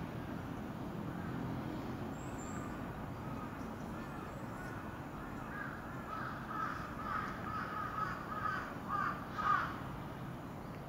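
Crow cawing: a quick run of short caws from about halfway in, the last one the loudest, over a steady low background rumble.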